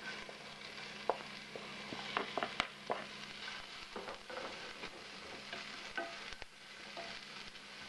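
Sliced onion, celery and pepper strips sizzling gently in a little oil in a shallow cast iron casserole, with a wooden spatula scraping and knocking against the pan as they are stirred; the sharpest knocks come between about one and three seconds in.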